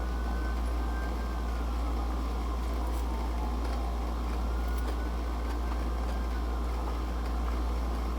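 A steady low hum under faint even background noise, with no clear events.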